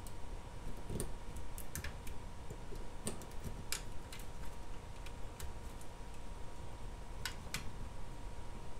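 A scattering of small, sharp clicks and ticks, unevenly spaced, from hands working a sheet of FEP release film on a resin printer vat's metal frame, over a faint steady tone.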